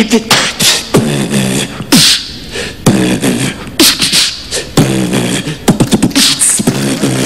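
Human beatboxing into a handheld microphone: sharp mouth-made drum hits and snaps over a hummed bass line that steps between low notes, with a sparser stretch about two seconds in.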